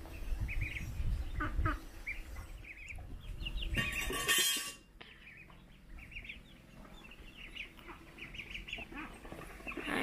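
Young chickens peeping and clucking around feed trays, many short high calls throughout. About four seconds in there is a loud rustling noise lasting under a second, from chopped greens being handled on the plastic trays.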